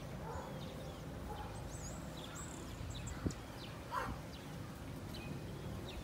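Outdoor ambience: a steady low rumble with small birds chirping now and then at high pitch, and a soft click about three seconds in.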